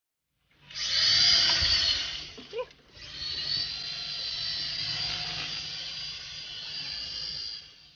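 Air Hogs toy RC helicopter's small electric rotor motor whining at a high pitch under throttle: it runs loud for about two seconds, cuts out briefly, then runs steadily a little quieter for about five seconds and stops.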